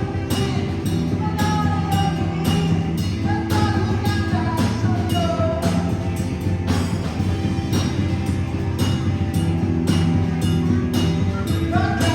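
Rock music with a steady drum beat, guitar and a singing voice.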